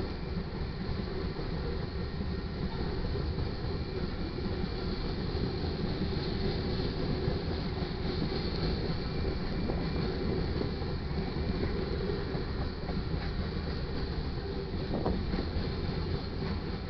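Loaded grain hopper cars rolling past, a steady rumble of steel wheels on the rails.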